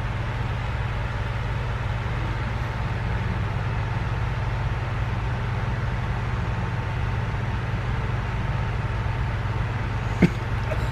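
Steady low hum of a cruise ship's machinery heard inside a cabin, with one short click near the end.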